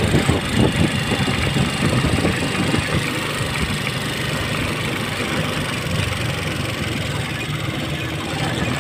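Engine of a moving road vehicle running steadily, heard from on board: a low hum under an even hiss of road and wind noise.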